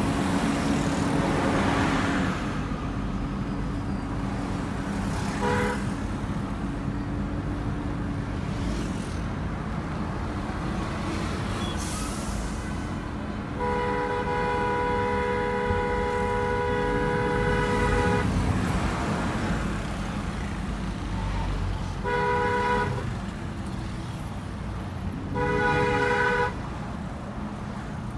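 Steady engine and road noise inside a car moving through city traffic, with a vehicle horn honking: a short toot about five seconds in, one long blast of about four seconds in the middle, and two short honks near the end.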